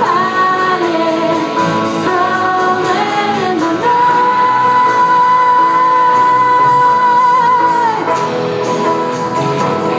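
Live rock band playing: singing over guitars and drums. About four seconds in, the singer holds one long high note for about four seconds.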